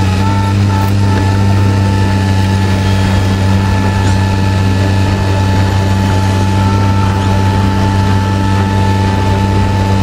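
Heavy lifting machine's engine running steadily: a deep, even hum with a thin, steady whine above it.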